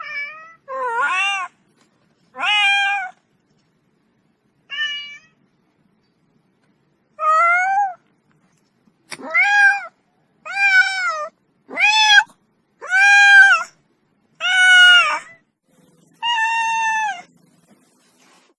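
Domestic cat meowing about eleven times, each meow rising then falling in pitch, the calls coming more quickly in the second half.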